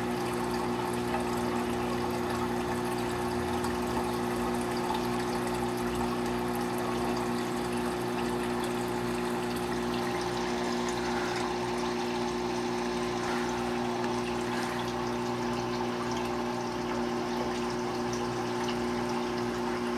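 Reef aquarium's pump and water circulation running: a steady hum with water moving over it, unchanging throughout.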